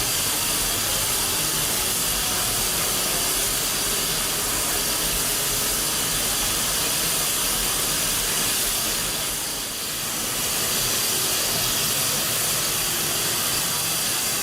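Steam locomotive venting steam in a steady, unbroken hiss.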